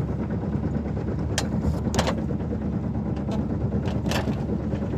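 Sailboat's inboard auxiliary engine running steadily, a low hum, with a few sharp clicks over it.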